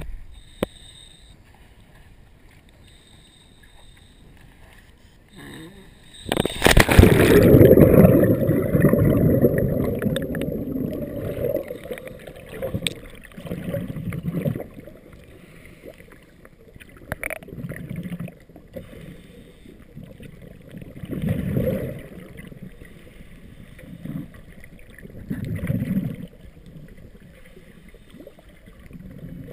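A loud splash and rush of water as the camera plunges under about six seconds in, then muffled underwater sound with bursts of bubbling every three to four seconds from a diver's breathing.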